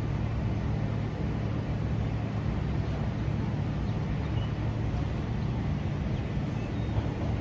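Steady low rumble and hum of an SMRT C151 metro train at the station, without a clear rise or fall in pitch.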